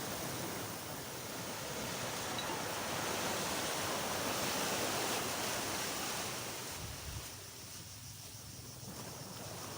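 Sea waves washing onto a sandy beach, swelling to a peak about halfway through and then ebbing away.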